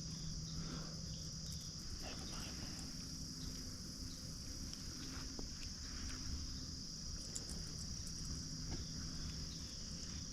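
Steady chorus of insects, a continuous high-pitched buzzing drone, with a few faint scattered clicks.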